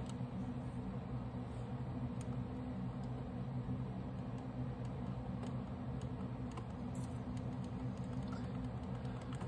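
Faint, scattered clicks of a SanDisk Sansa MP3 player's plastic buttons being pressed, over a steady low hum.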